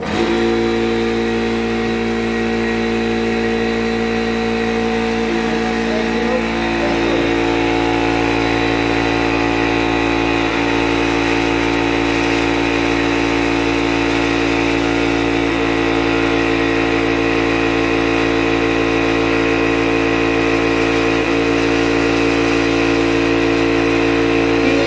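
High-pressure air compressor switching on and running steadily while it charges a CO2 airgun converted to PCP, building toward 15 MPa. It is a loud, even motor hum that starts abruptly, and its tone shifts slightly about seven seconds in.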